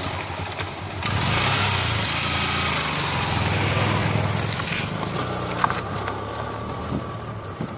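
Air-cooled motorcycle engine running just after being kick-started, revved up about a second in and then held, easing off slowly.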